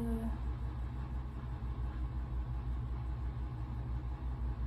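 A steady low rumble underneath, with a short hummed "mm" right at the start.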